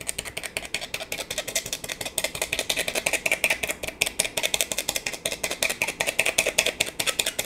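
Small fork picking and packing shisha tobacco into a hookah bowl, its tines making rapid, uneven clicks against the bowl.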